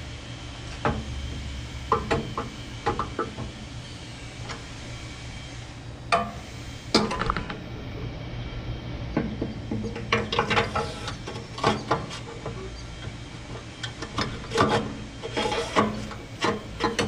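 Irregular metal clinks, knocks and scraping as a new burner tube is worked into a gas grill's firebox and does not seat easily.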